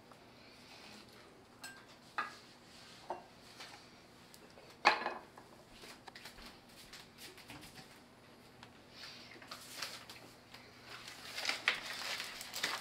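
A kitchen knife clinks and knocks against a glass bowl and a wooden cutting board as orange pieces are cut and dropped in, a few scattered strikes with one louder knock about five seconds in. Near the end a bag of sugar crinkles as it is handled.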